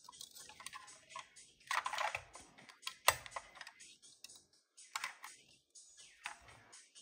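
Fingers handling a die-cast model car: many light, irregular clicks and taps of its metal and plastic parts, the sharpest about three seconds in, as its bonnet is worked open.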